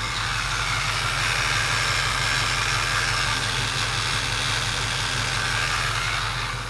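LQ4 6.0 V8 in an LS-swapped Chevy Nova idling steadily, with a rushing noise over it that eases off near the end.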